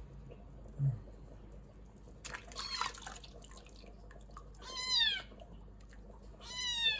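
Kitten meowing: two short, high-pitched meows close together near the end, with a brief scratchy noise a couple of seconds before them.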